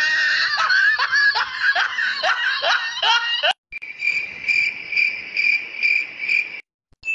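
A laugh sound effect, a quick run of falling 'ha-ha' notes, for about the first three and a half seconds. Then an alarm clock beeps, high-pitched, about twice a second, and stops suddenly.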